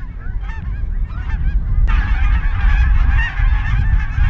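A large flock of snow geese calling overhead, many short high-pitched honks overlapping. About two seconds in the calling abruptly becomes a dense, louder chorus, over a low wind rumble on the microphone.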